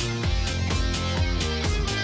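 Upbeat background music with a steady beat and guitar.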